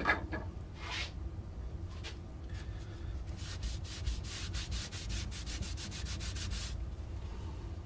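Rubbing on the flat bottom of a wooden duck decoy body with a paper towel, spreading glue before the keel is fitted. A few separate strokes, then quick back-and-forth strokes, about six a second, for roughly three seconds in the second half.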